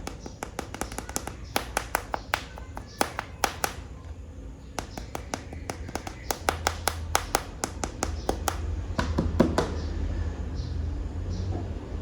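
Plastic animal toy figures being handled and tapped, giving quick runs of sharp clicks with short pauses that stop a couple of seconds before the end.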